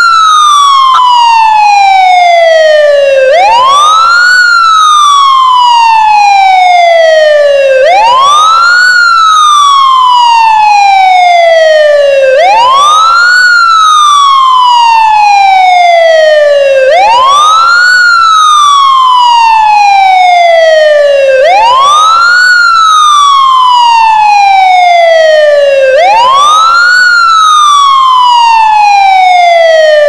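A loud siren wailing in a steady cycle. Each cycle rises quickly in pitch, then falls slowly, and repeats about every four and a half seconds.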